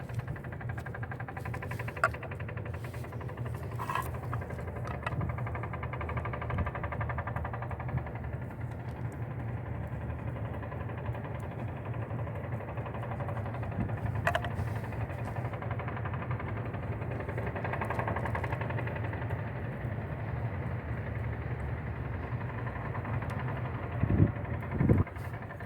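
A steady, engine-like mechanical hum runs throughout, with a few sharp clicks and two louder knocks near the end.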